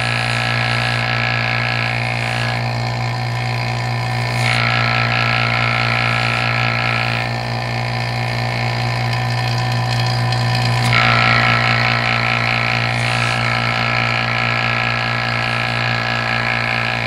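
Electric vacuum pump of a Sonnax vacuum test machine running with a steady hum, with air hissing through the test hose. The hiss changes several times as the hose tip is pressed and shifted on a bore-plug port of a 4L80E pump cover, trying to seal it for a vacuum reading that checks the bore for wear.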